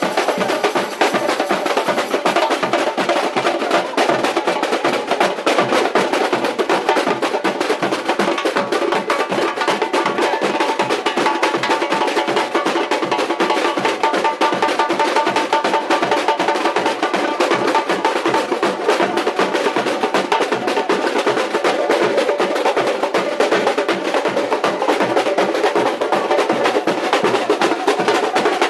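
Samba bateria of drums and snare playing a dense, steady rhythm, with a cuíca squeaking along in the middle.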